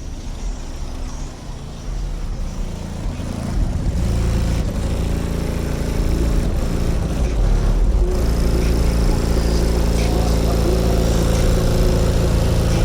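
Car audio subwoofers playing loud bass, growing louder over the first few seconds and then holding strong.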